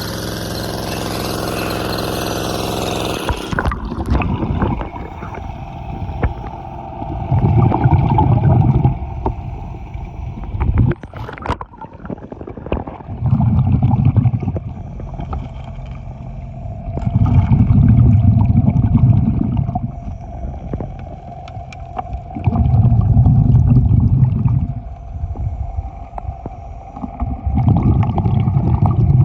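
A gold dredge's engine running steadily, which cuts off abruptly about three seconds in. After that come low gurgling bursts of water roughly every four to five seconds, five in all, over a fainter steady engine hum.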